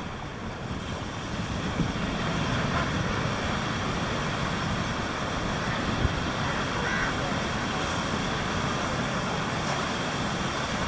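Steady rush of surf breaking on a sandy beach, growing louder over the first couple of seconds and then holding even.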